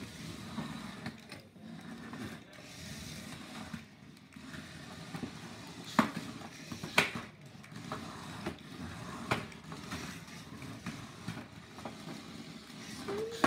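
Small remote-controlled Hexbug BattleBots toy robots driving and scuffling on a plastic arena floor: a steady rattly whir of the little motors and wheels, broken by sharp plastic clacks as they hit each other or the walls, the two loudest about six and seven seconds in.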